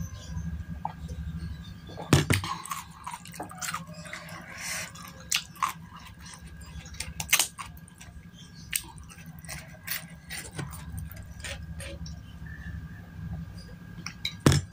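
Close-up mouth sounds of someone drinking water from a glass: sips and swallows, wet lip smacks and scattered sharp mouth clicks, over a steady low hum.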